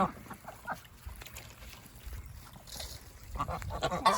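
Ducks and geese calling while they feed on watermelon: a run of short, quick quacks at the start, a quieter lull, then goose honking building near the end.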